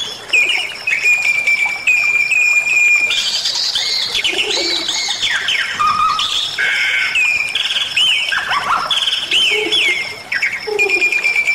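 Bali myna singing continuously: a varied run of whistles, held notes repeated several times and quick chattering phrases, with a few lower notes.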